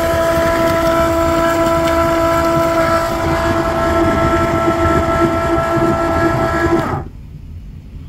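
Milwaukee M18 cordless transfer pump running steadily with a pitched hum, pumping condensate water out of a heat pump air handler's drain pan through a hose, the pan nearly empty. Its note turns uneven partway through, and it stops abruptly about seven seconds in.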